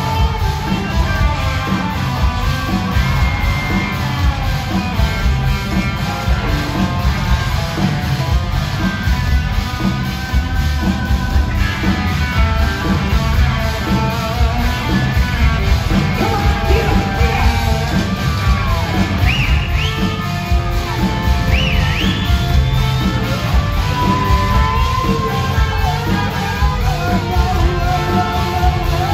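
Rock band playing live through a large hall's PA, heard from the audience: electric guitars, bass and drums over a steady beat, with lead notes bending up and down in pitch in the second half.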